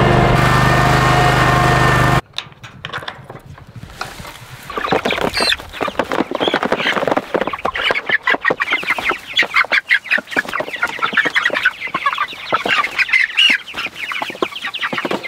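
A riding mower's engine runs steadily for about two seconds and cuts off abruptly. Then a flock of young meat chickens clucks and peeps in quick overlapping calls, growing denser after about four seconds as they are let out of a crate onto grass.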